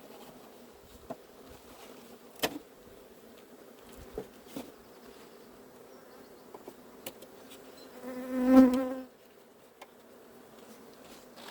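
Honey bees humming steadily at an open hive, broken by a few sharp knocks about two and four seconds in. About eight seconds in, a single bee buzzes loudly close to the microphone for about a second.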